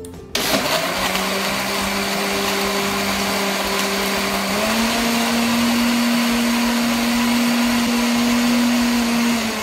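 Morphy Richards food processor with its blender jug fitted, switched on and running steadily as it blends milk, ice cream and ice cubes into a chocolate milkshake. The motor's hum steps up slightly in pitch about halfway through, and it begins to wind down at the very end.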